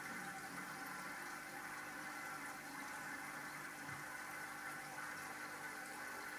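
Aquarium water trickling and bubbling steadily, with a faint low hum under it, as from the tank's filter running.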